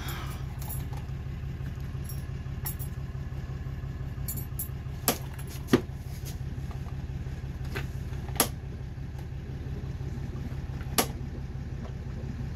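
Piezo igniter of a Dometic caravan fridge clicking four times, two close together and then two a few seconds apart, as the gas burner is being lit. Under the clicks runs a steady low, engine-like hum.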